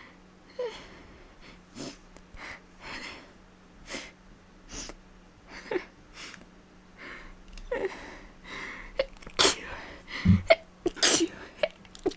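A woman's allergic sneezing: a long run of short, rapid sneezes with quick breaths between, coming louder and closer together in the second half. She takes sneezes this rapid for a sign that she is getting sick.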